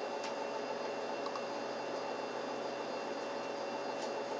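Steady room hum and hiss, with a few faint short clicks.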